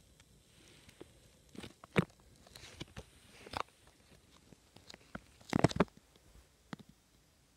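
Handling noise from the recording device being moved about in bed, with rustling of the bedding: scattered knocks and short rustles. The loudest are a sharp knock about two seconds in and a cluster of rustles around five and a half seconds in.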